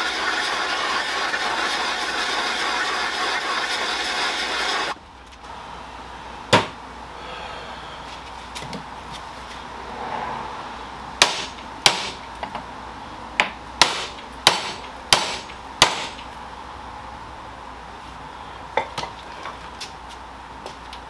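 A loud steady rushing noise cuts off about five seconds in. Then come hammer blows on metal: a single strike, a quick run of about eight, and a couple of lighter ones near the end, knocking a seized mid-shaft bearing loose on a Saab 9-3 driveshaft.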